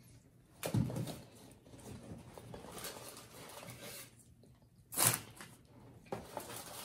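Close-miked eating: chewing fries and burgers, with the crinkle and rustle of paper wrappers and a cardboard Happy Meal box being handled. Two sharp, louder handling noises stand out, about a second in and about five seconds in.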